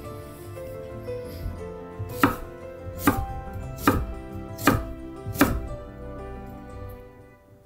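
Chef's knife chopping ginger on a wooden chopping board: five sharp, evenly spaced chops about a second apart, over background music with held notes.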